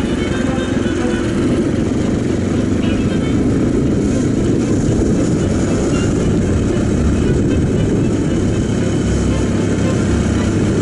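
Mondial RX3i Evo's 250 cc single-cylinder engine running while riding, first easing off, then pulling away again in the second half.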